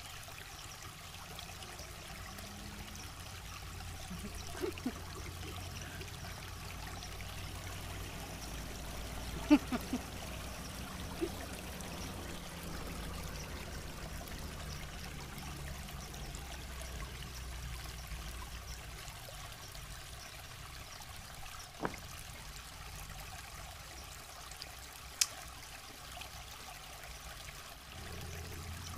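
River water running steadily over stones, with a few short sharp clicks or knocks close by.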